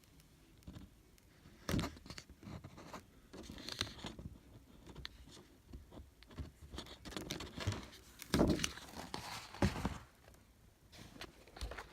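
Paper and packaging rustling and crinkling as a photobook is handled, with a few louder knocks, the loudest about eight and a half seconds in.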